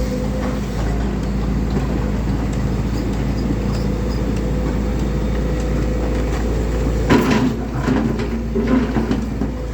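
Volvo crawler excavator's diesel engine running steadily, with a cluster of knocks and clatter starting about seven seconds in.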